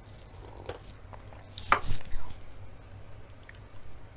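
Close-miked eating and drinking sounds: a quiet sip from a mug, then a loud sharp noise a little under two seconds in, followed by quieter mouth and handling noises.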